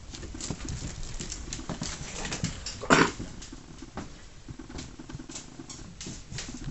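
A dog gives one short bark about three seconds in, over light tapping and scuffling of paws on the floor.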